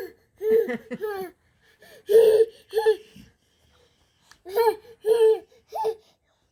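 A person making short, funny vocal noises into a jar: about seven brief voiced hoots in three quick groups, with pauses between them.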